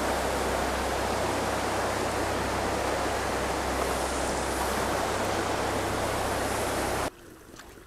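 Steady rush of a shallow, fast-flowing river running over a stony riffle, dropping away suddenly about seven seconds in.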